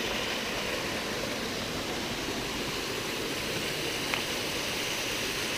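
Snowmelt stream cascading over rocks between snow banks: a steady rushing of water.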